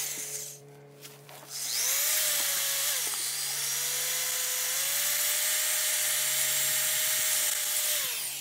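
Power drill with a 3/8-inch bit grinding against brick. It runs for a moment and stops, then spins up again with a rising whine, runs steadily, and winds down near the end. The bit is dull and the wrong kind for brick, so it is not cutting through.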